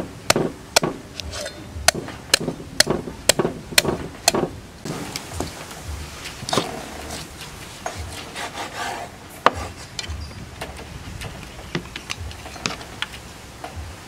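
Cleaver chopping through a raw chicken on a wooden cutting board: sharp chops about two a second for the first few seconds, then slower, scattered chops.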